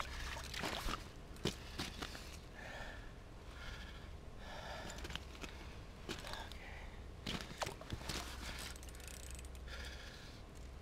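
Heavy breathing and snorting of an ice angler straining to hand-line a big musky up to the hole, with a few sharp clicks and a steady low wind rumble on the microphone.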